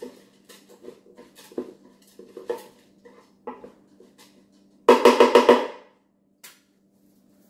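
Wooden spoon stirring rice in the Ninja Speedi's cooking pot, with light scrapes and knocks, then about five seconds in a quick run of sharp knocks of the spoon against the pot, the loudest part, and one last tap. A steady low hum runs underneath.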